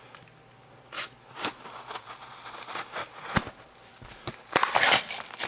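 A mailed package being opened by hand: a few sharp clicks and taps, then a louder stretch of tearing and crinkling packaging near the end.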